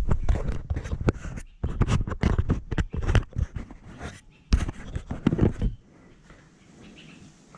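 Tools and bike parts being handled: a quick run of irregular knocks and clatters that stops about six seconds in.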